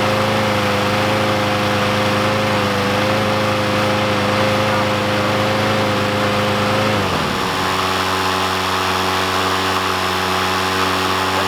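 Honda 5.5 hp gas mower's four-stroke engine running steadily beside a running EGO 56-volt electric mower. About seven seconds in, the gas engine is shut off and its pitch falls as it winds down. The electric mower's motor and blade keep running with a steady hum.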